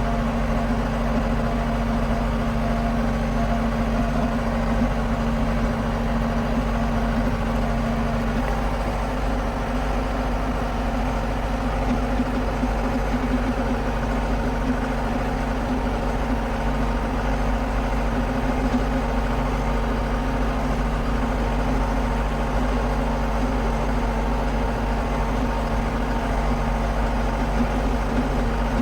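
John Deere 6420 tractor's diesel engine idling steadily, kept running after repairs to the fuel lines, fuel pump and routing that had caused a no-start.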